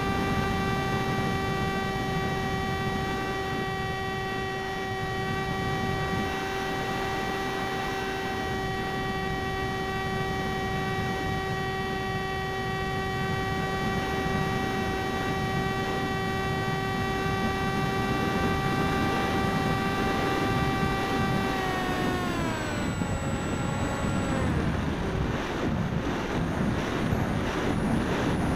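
Parkzone Icon A5 RC plane's brushless electric motor and propeller, heard from the onboard camera: a steady high whine over wind rush. About 22 seconds in the whine drops in pitch as the throttle is eased back, leaving mostly wind noise and a faint high whine.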